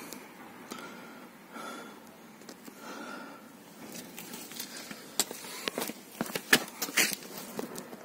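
Scuffs, rustles and sharp clicks of someone moving low along the car on paving with the phone in hand: handling noise and shoe scuffs, thickest and loudest in the second half.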